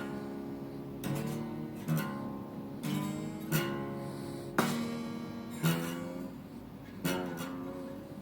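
Acoustic guitar played with a slide, dobro-style blues licks: chords and notes struck about once a second, each ringing out and fading, some sliding in pitch.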